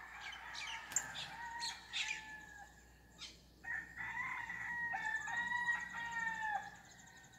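Rooster crowing: one crow in the first couple of seconds, then a louder, longer crow from about halfway that ends near the close. Small birds chirp sharply over the first crow.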